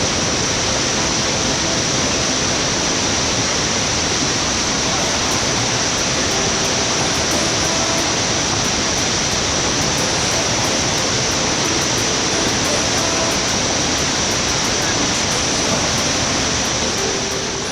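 Waterfall rushing steadily, a constant loud roar of falling water.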